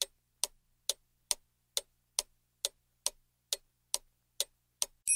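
Clock ticking steadily, about two ticks a second, as a thinking-time timer; a bright bell ding strikes at the very end, marking time up.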